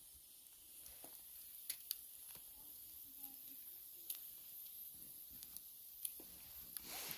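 Chicken kebabs sizzling over a charcoal grill: a faint steady hiss with scattered sharp crackles and pops from the coals and dripping fat. A short soft rustle comes near the end.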